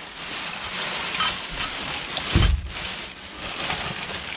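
Plastic bin bags rustling and crinkling as gloved hands rummage through them, with a dull thump about two and a half seconds in.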